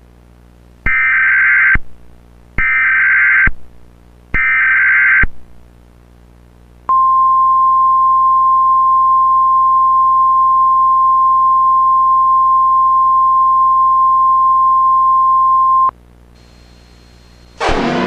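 Emergency Alert System SAME header: three one-second bursts of data warble, the digital code that opens an EAS alert. Then the single-pitch National Weather Service 1050 Hz alert tone is held steady for about nine seconds. Near the end a siren starts, rising in pitch.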